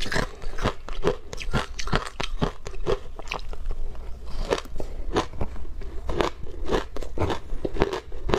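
Frozen matcha shaved ice being bitten and chewed, a continuous run of sharp crunches, several each second.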